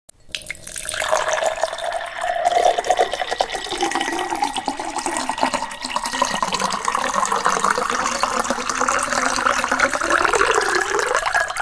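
Liquid pouring in a steady stream. It builds up over the first second and cuts off suddenly at the end.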